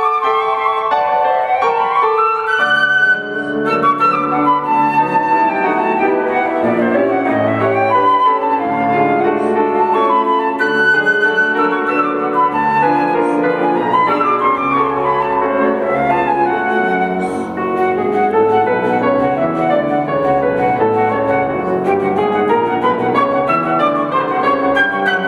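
Flute and grand piano playing classical music together: the flute carries the melody in held and moving notes over the piano's accompaniment, which fills in with lower notes from about three seconds in.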